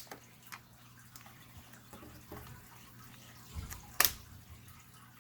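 Faint clicks and taps of hands working on a laptop's display panel and its connector, with one sharp click about four seconds in.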